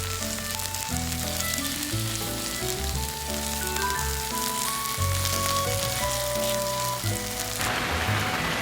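Vegetable pancake batter frying in plenty of oil in a pan: a steady crackling sizzle, over background music with melodic notes and a bass line. About 7.7 s in, the sizzle gives way to a denser, even hiss.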